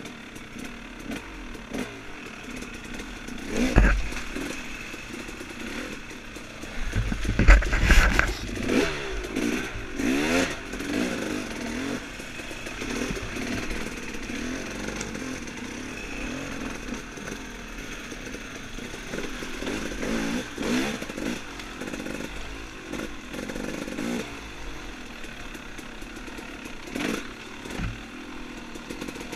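Off-road dirt bike engine running and revving up and down while being ridden over rough trail, with clattering and heavy thumps from the bumps. The loudest thumps come about four seconds in and again around seven to eight seconds in.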